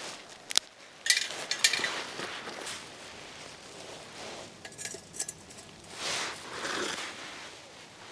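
Metal camping cookware clinking and knocking as it is handled: a sharp click about half a second in, a quick run of ringing clinks a second later, a few more clinks around five seconds, then a softer rustle.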